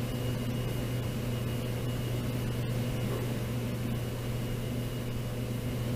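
Steady low machine hum, like running cooling fans, with a faint constant high whine over it.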